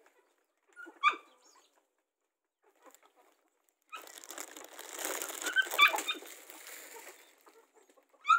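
A puppy gives one short yip about a second in. From about four seconds, a few seconds of rustling scuffle follow, with a couple of short yelps, as puppies and chickens jostle at their food.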